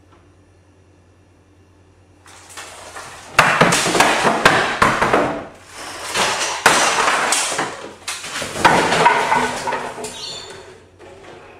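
Kitchen things (plastic containers, dishes and a wire dish rack) clattering and banging as they are knocked off the counter and sink onto the floor: a quick run of crashes and rattles in about three loud bursts, starting a couple of seconds in and dying away near the end.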